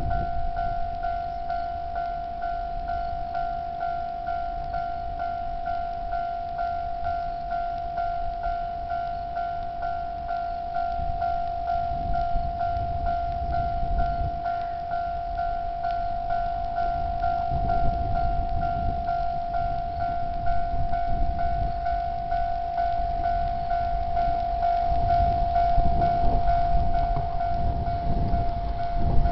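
Japanese railway level-crossing warning signal ringing: an electronic alarm bell repeating one steady tone over and over, warning that a train is approaching.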